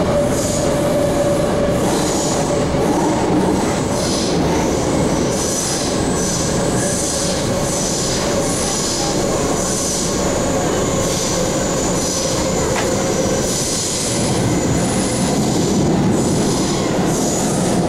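MTR K-Train electric multiple unit running at speed through a tunnel, heard from inside the car: a steady rumble of wheels on rail, with high-pitched wheel squeals coming and going throughout.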